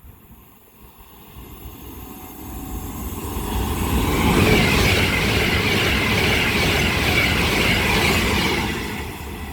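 Class 390 Pendolino electric train passing through without stopping: a rushing noise that builds over the first few seconds, stays loud for about five seconds, then falls away near the end.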